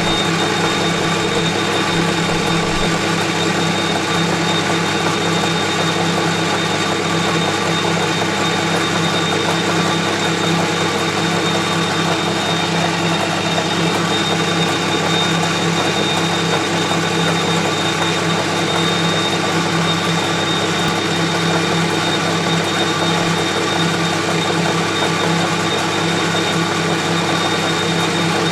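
Metal lathe running steadily while its centre is trued up, a constant machine hum with a thin high whine held throughout.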